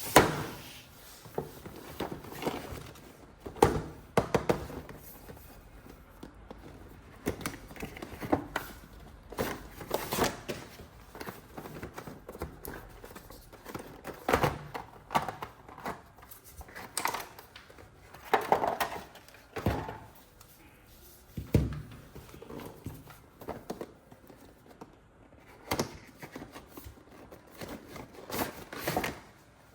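Irregular knocks, taps and clicks of plastic toys and packaging being handled, with some crinkling in between.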